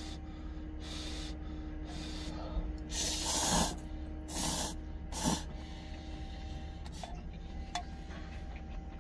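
A man slurping instant ramen noodles in noisy sucking pulls. The longest and loudest comes about three seconds in, followed by two shorter slurps around four and a half and five seconds in.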